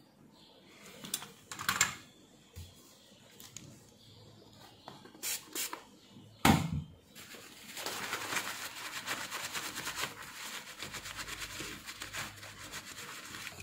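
Paper tissue crinkling and rustling as it is rubbed over a small circuit board, a dense rustle taking up the second half, after a few light clicks and taps from handling the board.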